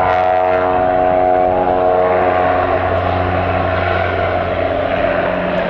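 Saab 340 twin-turboprop airliner running its General Electric CT7 engines as it moves along the ground. It gives a steady propeller drone with a stack of even tones, which blurs into a broader rush about halfway through.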